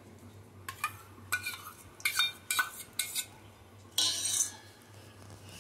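A steel spoon knocking and scraping against stainless steel bowls as curd is spooned into mustard and chilli paste: about five light metallic clinks over the first three seconds, then a short scrape about four seconds in.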